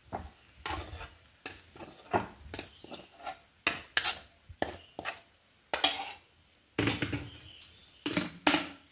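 A spoon scraping and knocking against a metal pan as cooked rice is emptied into a glass bowl: a string of irregular short scrapes and clinks, with a short pause near the end of the run.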